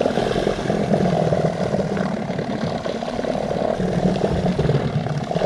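Boat motor running steadily, pushing the boat a little further up a shallow creek.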